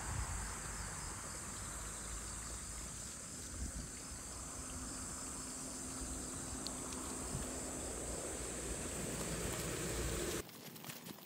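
Insects chirping in a steady high-pitched, fast-pulsing trill over a low rumble. About ten seconds in the sound cuts off suddenly to a quieter background with light ticks.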